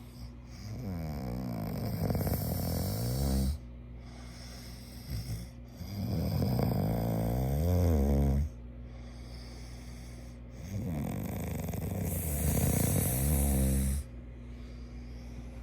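A sleeping person snoring: three long snores about five seconds apart, each lasting about three seconds, growing louder and then cutting off sharply.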